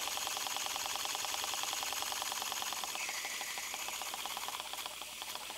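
Small aluminium wobble-type (oscillating-cylinder) model steam engine running fast on compressed air: a rapid, even chuffing of exhaust puffs with light mechanical clatter. It gets slightly quieter near the end.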